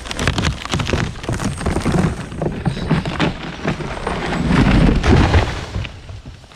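A big tree trunk snapping and the tree crashing down, a long run of sharp cracks of breaking wood and branches, loudest about five seconds in. The trunk, rotten through higher up, gave way above the cut as an excavator pulled on it.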